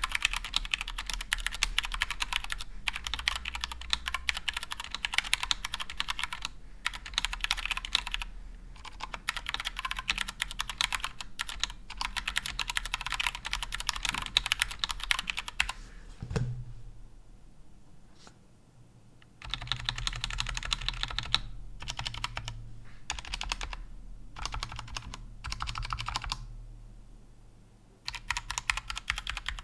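Typing on a GMMK Compact mechanical keyboard with Gateron Brown tactile switches: rapid keystrokes in bursts, with a pause of about three seconds just past the middle and a few shorter pauses.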